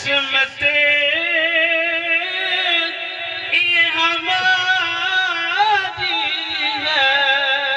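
A man singing a naat, an Urdu devotional poem in praise of the Prophet, into a handheld microphone in long, wavering held notes.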